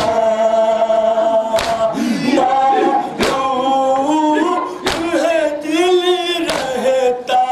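Men singing a nauha, a Shia mourning elegy, in long held lines. A sharp slap of matam, hands struck on chests, comes about every second and a half.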